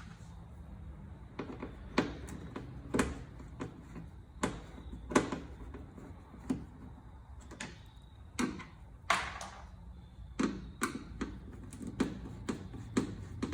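Irregular plastic clicks and knocks, with a longer scrape about nine seconds in, as the stuck stock speaker is pried and worked loose from the 4Runner's rear door.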